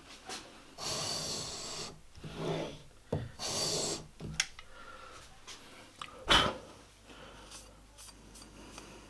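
Plane iron held in a roller honing guide, scraping along a wet 1000-grit waterstone in two strokes of about a second each; these are test strokes to see where the freshly inked bevel bears on the stone. A single knock follows a few seconds later as the guide is set down or handled.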